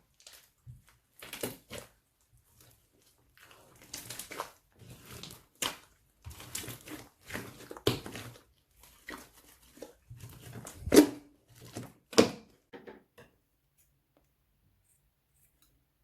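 Irregular rustling, crinkling and tearing of plastic being handled, with sharp clicks in between; it stops about 13 seconds in.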